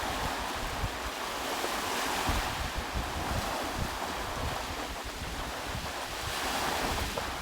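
Waves breaking and washing on the shore, with wind buffeting the microphone as a gusty low rumble; the surf swells louder about two seconds in and again near the end.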